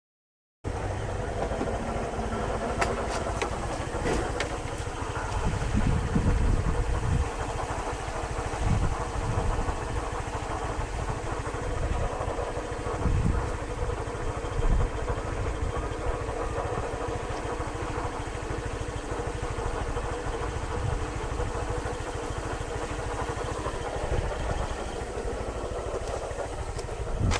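Honda Lead 125 scooter's single-cylinder engine running steadily on the move, with wind gusting on the microphone. The sound starts abruptly about half a second in.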